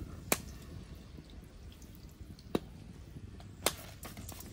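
Hot cooking oil in an iron kadai over a wood fire, spitting with three sharp pops over a low, steady rumble: the oil has come up to frying heat.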